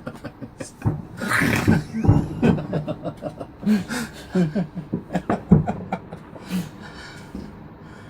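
A man laughing in short, breathy, panting bursts, with a couple of sharp firework bangs about two seconds in and again a little after five seconds.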